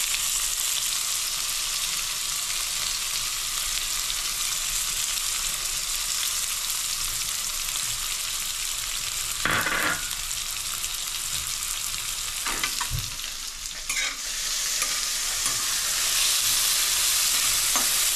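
Chopped onion sizzling steadily in hot ghee with cumin seeds in a stainless steel kadai, at the onion-frying stage of a tempering. A couple of short knocks come about halfway through.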